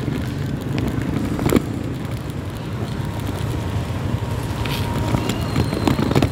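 Street traffic heard from a moving bike: motorcycle and tricycle engines running close by over a steady low rumble on the phone's microphone, with one sharp knock about a second and a half in.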